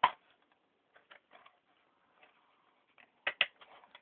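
Plastic DVD cases being handled: a sharp click at the start, scattered light taps and rustles, then two louder clicks a little over three seconds in.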